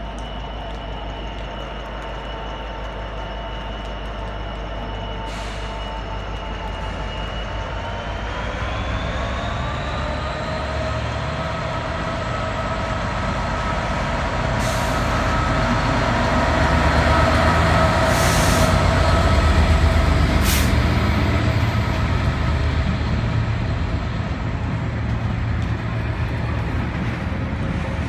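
Class 66 diesel locomotive's two-stroke V12 engine (EMD 710) pulling away from a stand: a steady drone whose pitch rises about eight seconds in as the power is opened up, then growing louder as the locomotive passes close and easing as the wagons roll by. A few brief hisses cut in, the longest about two-thirds of the way through.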